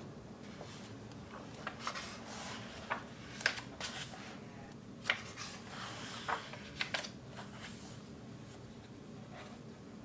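Paper pages of a printed photo zine being handled and turned: a string of short, crisp rustles and flicks over faint room tone, dying down near the end.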